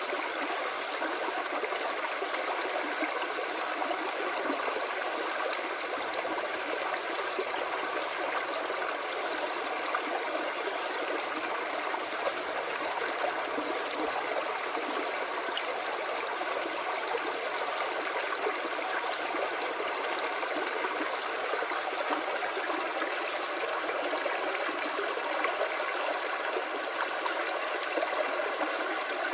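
Creek water flowing, a steady rush that does not break or change.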